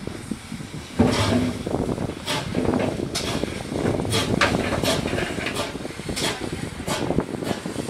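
GWR 57xx pannier tank steam locomotive 7714 moving off, its exhaust chuffing in short beats about two to three a second over a steady steam hiss. The chuffing starts about a second in.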